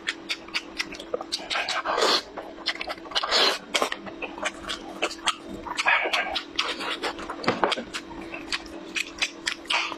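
Close-miked wet eating sounds: lips smacking and sucking in a quick string of sharp clicks, with a few longer slurps, as meat is chewed and pulled off a braised animal head by hand. A steady low hum runs underneath.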